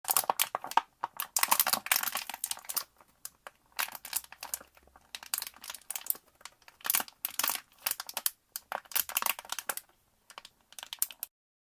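Plastic PET bottle being crushed by hand: crackling, crinkling bursts in several bouts with short pauses, stopping about a second before the end.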